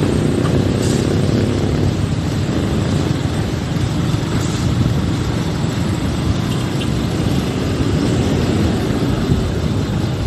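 Steady vehicle rumble and traffic noise, an even low rumble that holds level throughout.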